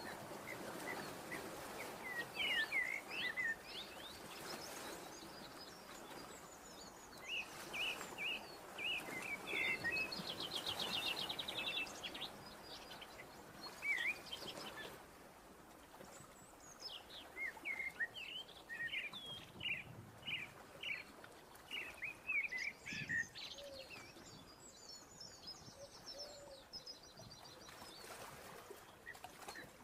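Small birds chirping: groups of short, quick rising and falling chirps with pauses between them, and a fast trill around the middle, over a faint steady hiss.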